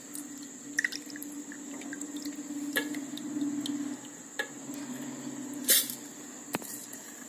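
Soaked raw rice and urad dal scooped by hand out of their soaking water and dropped into a steel mixer-grinder jar: wet squishing and dripping water, with a few light taps on the steel, the loudest a little before the end.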